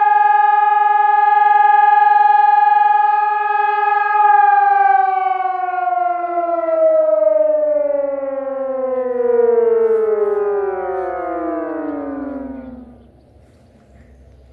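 ERGATEC civil-defence siren sounding its test signal: a steady loud tone with many overtones. About four seconds in, the pitch starts to fall steadily, gliding down until the siren cuts out about thirteen seconds in.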